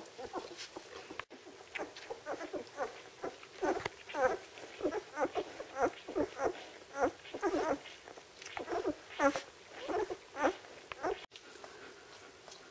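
Twelve-day-old Czechoslovakian wolfdog puppies squeaking and whimpering as they jostle to nurse: many short, high calls in quick succession that stop near the end.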